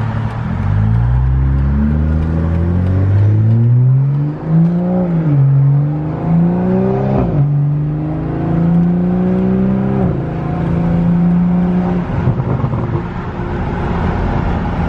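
BMW M340i's turbocharged inline-six with a muffler-delete straight-pipe exhaust, heard from inside the cabin, accelerating hard. The engine note climbs and drops back at three upshifts, then settles to a steadier, lower drone near the end.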